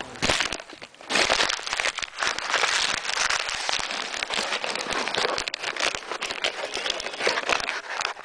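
Loud, close rustling and crinkling as something is handled right against the microphone.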